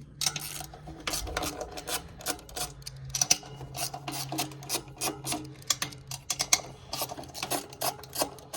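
Metal parts and tools being handled on a condenser fan motor: irregular clicks, knocks and scraping over a low steady hum that stops a little after six seconds in.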